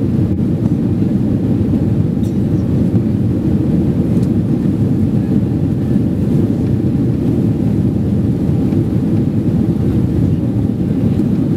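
Boeing 767-300ER cabin noise in flight, a steady low rumble of engines and rushing air heard from a window seat.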